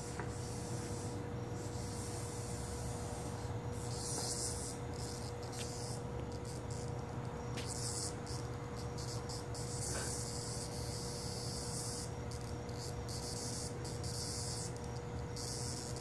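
Cicada buzzing in irregular bursts of a second or two, high and hissy, starting and stopping abruptly, over a steady low hum.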